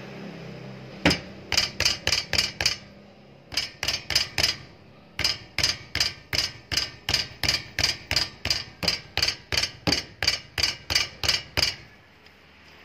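Rapid sharp metallic knocks, one about a second in, then runs of them at about three to four a second, with brief pauses between runs.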